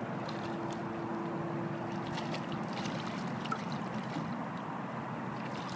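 Steady rushing of the river, with light splashes now and then as a hooked shad thrashes at the surface in the shallows. A faint low hum stops about halfway through.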